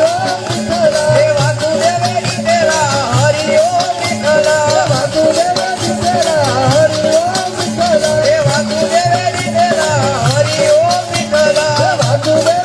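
Instrumental interlude of devotional bhajan music: an ornamented, wavering melody over a steady drum beat and shaker-like hand percussion.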